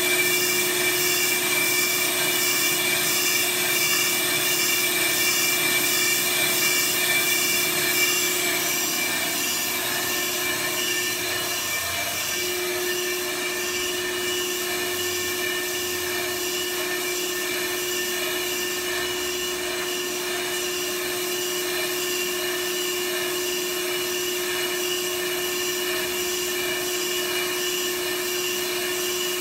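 Brake lathe running a slow resurfacing cut on a front brake rotor: a steady machine hum with a constant tone over a hiss. It drops slightly in level about eight seconds in.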